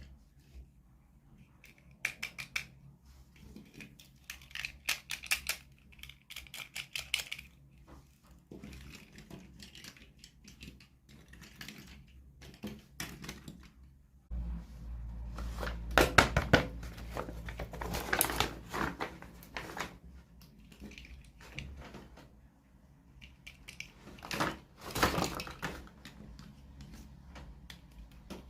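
Small plastic toy pieces and packaging handled by hand: irregular clicking and tapping, with louder clusters of clatter about halfway through and again near the end.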